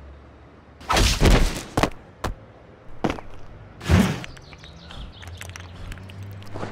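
A series of heavy thumps and knocks: a loud cluster of impacts about a second in, a few single sharp knocks after it, and another loud thump about four seconds in, over a low steady hum.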